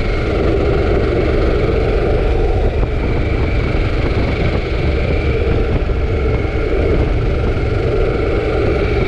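Harley-Davidson Pan America's Revolution Max 1250 V-twin running at a steady cruise under heavy wind noise from riding, with no revving.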